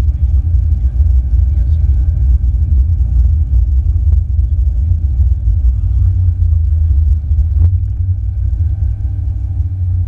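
Ferrari 488 GTB on the move, its twin-turbo V8 and the road giving a steady low rumble. A single sharp click comes about seven and a half seconds in.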